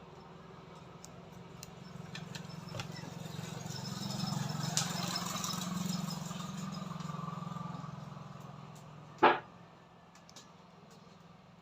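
A motor vehicle passing by, its low engine hum growing louder and then fading away, followed about nine seconds in by a single sharp snap.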